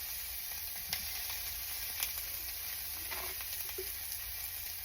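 Rice, garlic, onion and tomato sizzling steadily in hot olive oil in a pot as the rice is fried before the broth is added, with a couple of sharp clicks about one and two seconds in.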